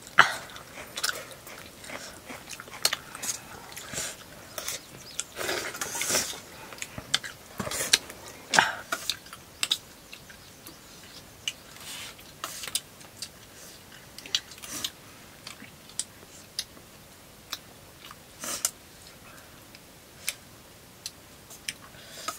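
A person eating buff (buffalo) dry meat curry and rice: irregular wet chewing and smacking mouth clicks, denser and louder about six to nine seconds in.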